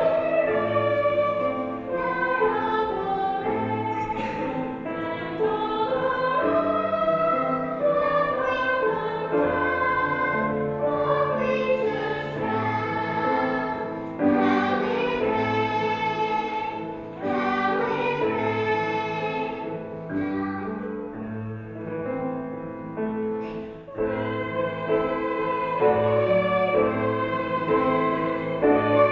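Children's choir singing a song in sustained phrases, with short breaks between phrases.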